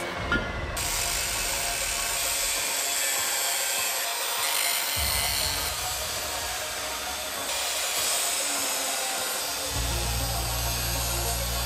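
Angle grinder grinding steel plate, a harsh, high hissing whine that runs on, after a short knock near the start.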